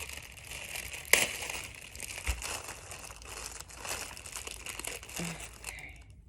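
Packaging crinkling and rustling as a box is unpacked by hand, with a sharp, louder crackle about a second in. It dies away near the end.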